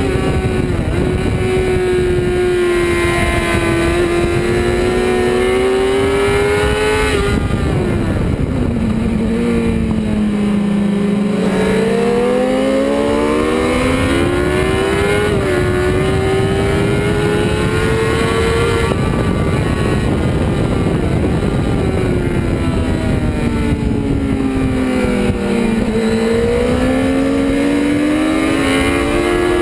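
Honda CBR600's inline-four engine at high revs, heard from on the bike at track speed with wind rushing past: the engine note holds high, drops sharply about seven seconds in as it is braked and shifted down for a corner, then climbs back up through the gears, and falls and rises again in the second half.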